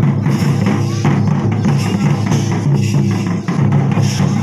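Santali Karam dance music: loud, steady drumming in an even, repeating rhythm.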